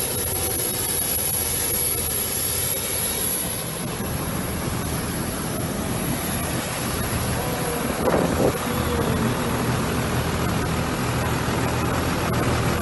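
Steady roar of aircraft jet engines running, with a brief scraping crunch about eight seconds in as a fuel truck strikes an airliner's wing.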